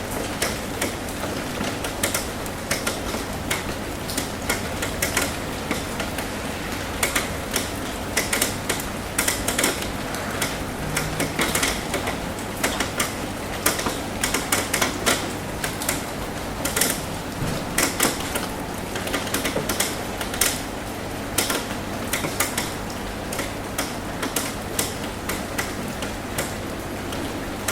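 Raindrops tapping on a metal roof: irregular sharp ticks, thicker in the middle stretch, over a steady hiss of rain.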